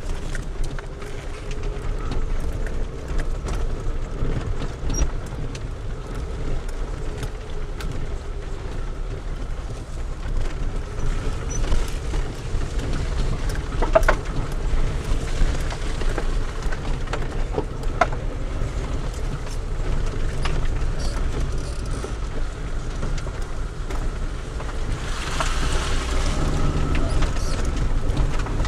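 A car driving slowly over a rutted, muddy dirt track, heard from inside the cabin: a steady low rumble of engine and tyres, with scattered knocks and rattles as the wheels drop into the ruts. Near the end a hiss swells briefly.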